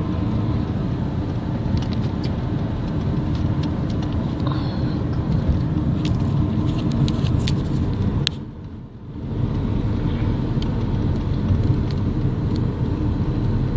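Steady road and engine rumble inside a moving car's cabin. A few light clicks and taps come between about six and eight seconds in. Just after them the sound briefly dips and goes muffled for about a second.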